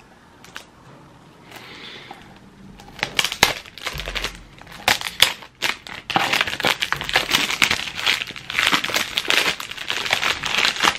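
Clear plastic cellophane wrap being peeled off a perfume box and crumpled in the hands. Scattered crackles at first, then dense, continuous crinkling through the second half.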